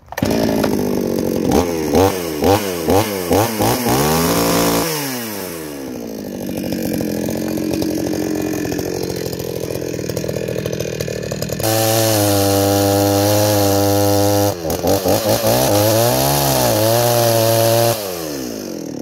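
Two-stroke chainsaw engine running with its chain freshly tensioned: the throttle is blipped several times, the engine drops back to idle, is held wide open for a few seconds, blipped again, and falls back toward idle near the end. It spins the chain very freely, the sign that the chain tension is right.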